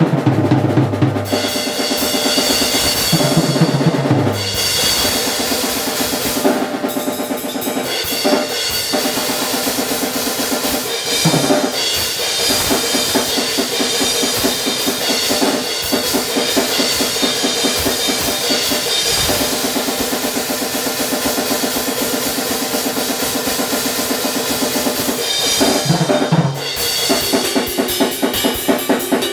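Drum kit played fast in grindcore style: rapid blast beats on snare and cymbals, broken by a few short fills, with a constant cymbal wash. The kick drums are triggered, so they are barely heard, and the raw sound is picked up without microphones.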